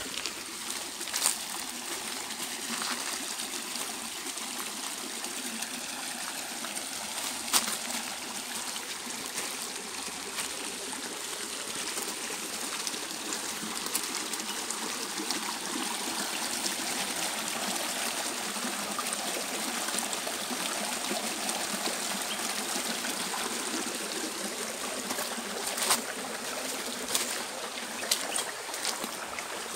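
Shallow stream trickling steadily over stones. A few sharp clicks stand out, about a second in, near eight seconds and twice near the end.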